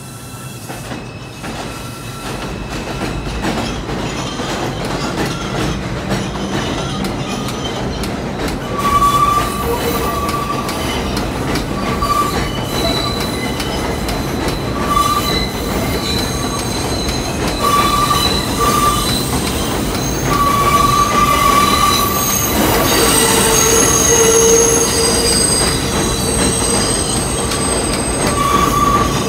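New York City subway train rolling around a curve on elevated track, its steel wheels squealing against the rails. The squeals come and go in high tones over a steady rumble that grows louder, and a lower squeal joins in past the middle.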